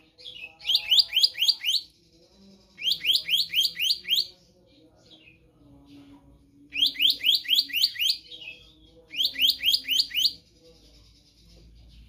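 Black-naped monarch calling in four quick bursts of ringing, upward-sweeping whistled notes, about six notes a second, with short pauses between bursts.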